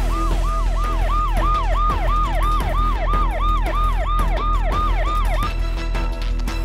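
Ambulance siren in a fast yelp, each sweep rising then falling about three times a second, cutting off about five and a half seconds in, over a low steady drone.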